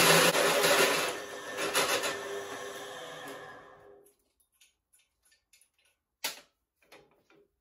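Pillar drill cutting a notch in a tube with a hole saw in a tube notcher, then the drill spinning down and fading away over about three seconds. A few light clicks near the end as the notcher is handled.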